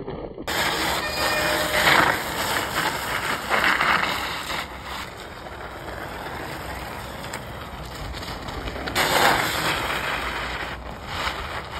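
Home-made screw-studded mountain bike tyres rolling over ice with a continuous crunching scrape, rising to louder rasping surges about two, four and nine seconds in.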